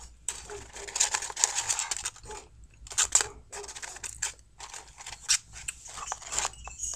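Paper McDonald's french-fry carton crinkling and rustling as it is handled, in irregular crackly bursts that are loudest about a second in and again around three seconds in.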